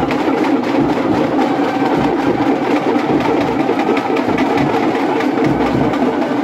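Rapid, continuous drumming mixed with the noise of a dense crowd.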